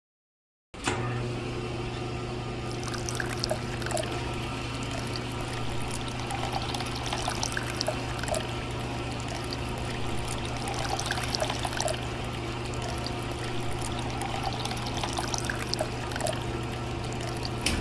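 A small electric motor humming steadily while water pours and trickles, starting suddenly about a second in.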